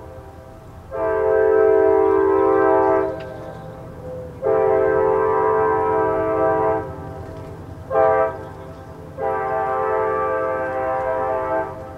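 Horn of F40PHM-2C diesel-electric locomotive 2103 sounding four blasts, long, long, short, long: the standard grade-crossing signal. A steady low rumble of the moving train runs underneath.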